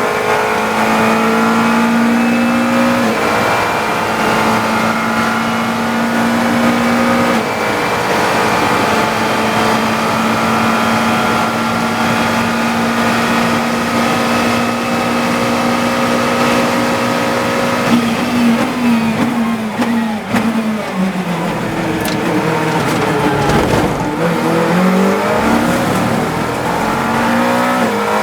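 GT3 race car engine heard from the cockpit, held flat out at a steady high pitch for a long stretch, then blipped down through several gears under braking about two-thirds of the way in. It runs low through a slow corner, then revs back up as the car accelerates out.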